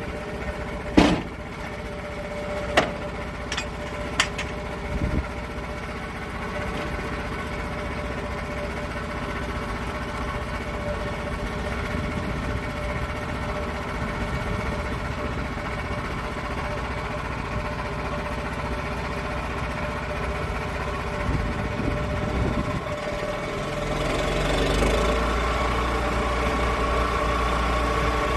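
Portable sawmill's engine running steadily, with a few sharp knocks in the first few seconds. About 23 seconds in it grows louder, with a deeper rumble.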